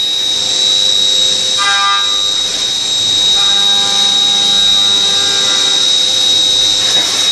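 Leadwell V-50L vertical machining centre milling metal blocks. A steady high-pitched spindle whine runs throughout over a constant hiss. A lower, steady-pitched cutting tone comes in briefly about one and a half seconds in, then again from about three and a half seconds until near the end, as the end mill bites into the workpiece.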